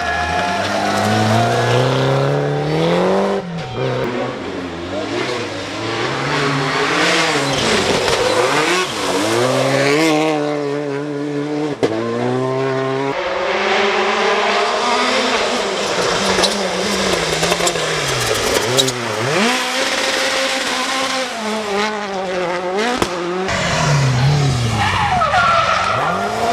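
Rally cars driven flat out, their engines revving hard, the pitch repeatedly climbing and then falling away through gear changes and lifts. The sound changes abruptly several times as one car gives way to the next.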